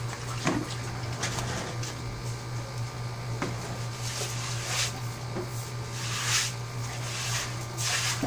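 Water spraying from a garden hose onto a wet concrete floor in three short bursts in the second half, over a steady low hum.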